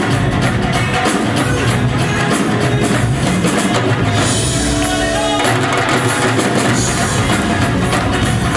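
Live ensemble music driven by several Punjabi dhol drums beaten with sticks, over a rock drum kit with electric guitar and bass. About four seconds in, the low drumming thins for about a second under a held note, then the full beat comes back.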